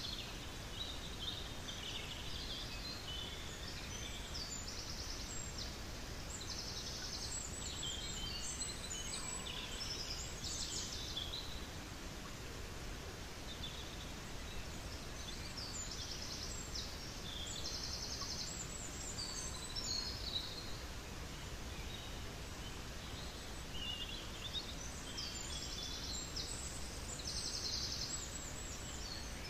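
Steady rush of a flowing stream, with songbirds chirping in short clusters every several seconds.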